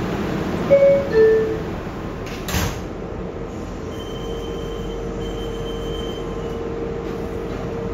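R142A subway car door chime, two falling tones about a second in, then the doors closing with a short thud a little later. A steady hum from the car sets in about four seconds in.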